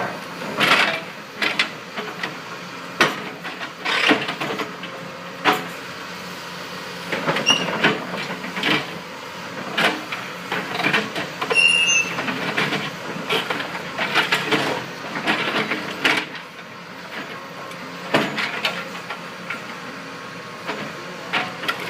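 Excavator engine running steadily while it pulls and pries at a steel bridge: irregular metal clanks, knocks and creaks, with two brief high squeals of straining steel.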